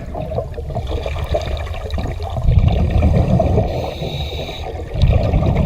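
Water churning and splashing with a low rumble.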